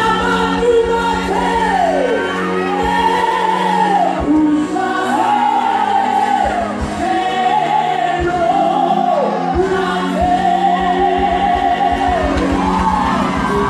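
Live gospel song with singing over instrumental backing, the voice holding long, sweeping notes over a steady accompaniment.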